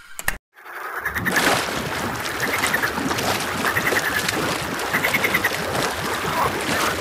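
A couple of sharp clicks at the very start, then after a brief gap a frog pond: frogs croaking in short bursts about once a second over a steady wash of water.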